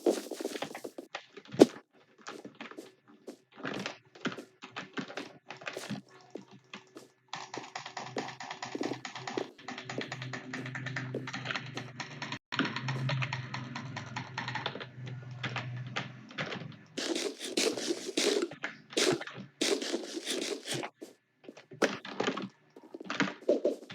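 Typing on a computer keyboard: quick, irregular keystroke clicks throughout. A steady background sound with faint held tones joins the clicks for roughly the middle ten seconds.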